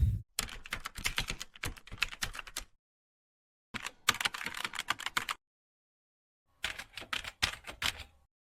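Typing on a keyboard: three bursts of rapid key clicks, each lasting one to two and a half seconds, with short silent gaps between them.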